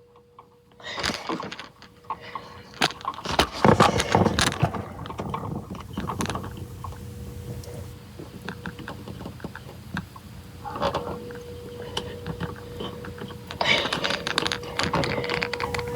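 Outdoor tornado warning siren sounding a steady wailing tone heard from a distance through a window, growing louder near the end. Rustling and knocks of handling noise come and go over it, loudest about a second in, around four seconds in, and near the end.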